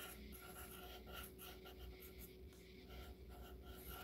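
Faint pencil scratching on paper in short, irregular sketching strokes, over a thin steady hum.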